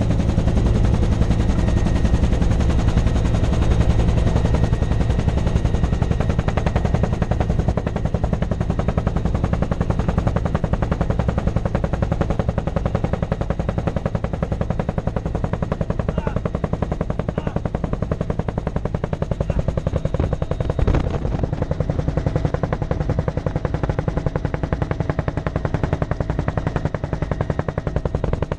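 UH-1 Huey helicopter's two-bladed main rotor beating in flight, a rapid steady chop with engine and wind noise, heard inside the cabin with the side door open. A brief louder thump about three-quarters of the way through.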